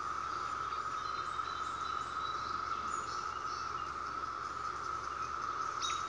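Chorus of cicadas, one steady, even drone, with a few faint high chirps in the first half and a short tick near the end.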